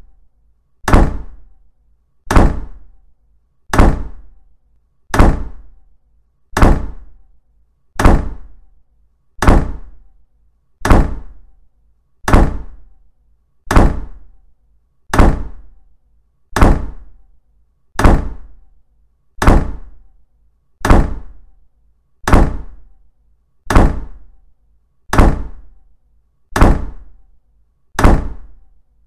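A loud thud repeating at an even pace, about every second and a half, each one dying away before the next.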